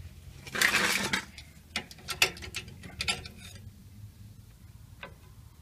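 Hydraulic trolley jack being let down under a car: a short rushing hiss about a second in, then a run of sharp clicks and knocks as the jack and the car's weight come down.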